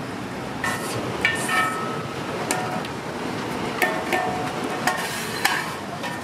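Irregular sharp metallic clinks and clanks, about a dozen, some with a brief ringing tone, over a steady hum of street noise.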